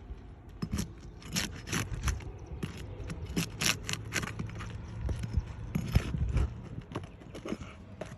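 Irregular scrapes, clicks and knocks against asphalt roof shingles while damaged shingles are pried up and their nails worked loose, busiest in a few clusters.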